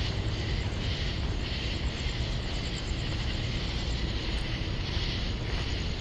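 Chorus of night-singing insects, the sound taken for cicadas: a high buzzing that pulses about twice a second, over a steady low rumble.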